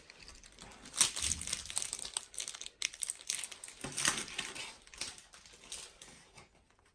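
Packaging crinkling and rustling in irregular bursts as it is handled, dying away near the end.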